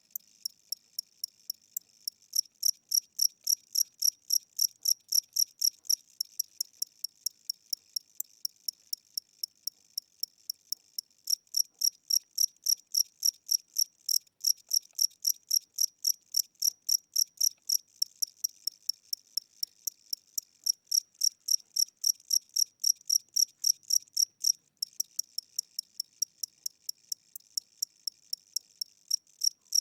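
A single cricket chirping in a slow, even rhythm, about three to four high-pitched chirps a second, growing louder and fainter in stretches. The slow tempo is what the recordist takes for an old or tired cricket whose wings are getting weak.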